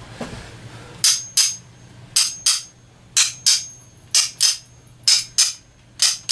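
Hammer tapping on a steel screw to drive a tight-fitting bearing retaining washer off the X-axis screw: sharp, ringing metal taps in pairs, roughly once a second, starting about a second in.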